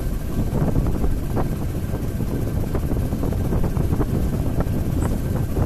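TVS Apache RTR 180 motorcycle on a slow ride, its single-cylinder engine running steadily, with wind rumbling on the microphone.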